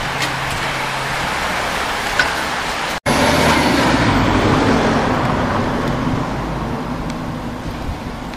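Steady rushing road and wind noise as a bunch of racing cyclists rides past. A brief cut-out about three seconds in is followed by a louder stretch with a low rumble that fades toward the end.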